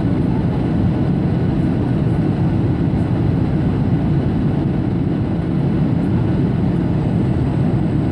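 Airplane cabin noise: the steady low drone of the engines and rushing air, heard from inside the aircraft.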